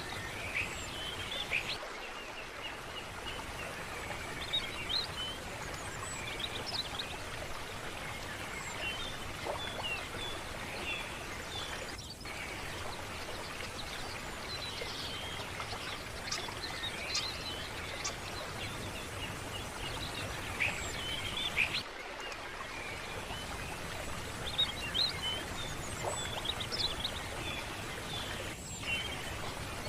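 Steady rush of running stream water with many small birds chirping over it.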